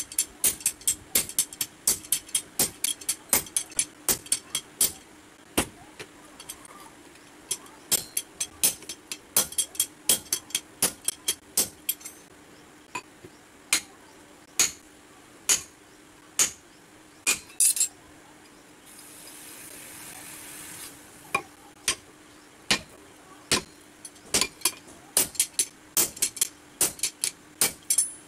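Hand-forging hammer blows ringing on steel at an anvil, driving a chisel or punch into a red-hot adze blank. The blows come in quick runs of about two to three a second, with short pauses, and there is a brief hiss about two-thirds of the way through.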